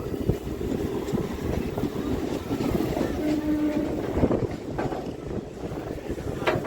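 An electric suburban local train running, its wheels and car body giving a steady low rumble, with a short steady horn tone about three seconds in.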